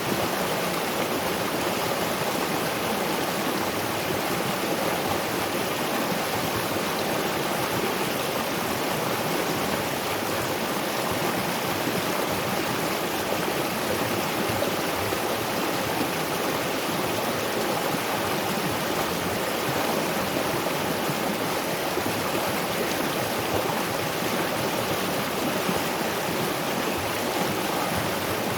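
Waterfall and river water rushing, a steady, even wash of sound with no breaks.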